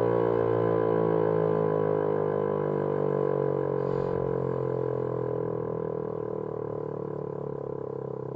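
Federal Signal Equinox rotating chopper siren winding down: its tone slowly falls in pitch and fades, with a regular pulsing in the sound that grows plainer as it slows.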